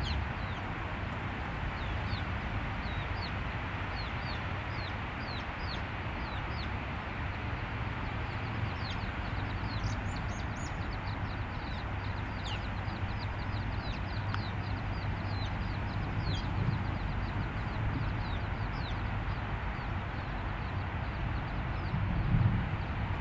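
A foraging chicken family: many short, high peeps from the chicks, repeated in clusters, with hen clucking, over a steady background rumble. A low bump near the end.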